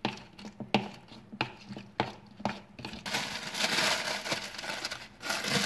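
A metal utensil tapping and scraping against a ceramic bowl as a wet marinade is stirred, a few sharp clinks about half a second apart. From about three seconds in, a plastic bag rustles and crinkles as it is opened around a raw steak.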